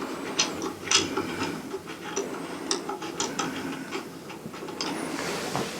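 Light clicks and taps of small telescope parts being handled, as a dust cap comes off the star diagonal and the eyepiece is readied, with a brief rustle near the end.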